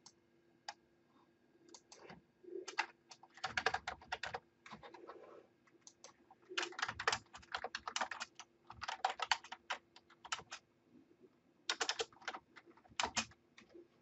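Typing on a computer keyboard: quick runs of keystrokes in three or four bursts with short pauses between, after a single click near the start.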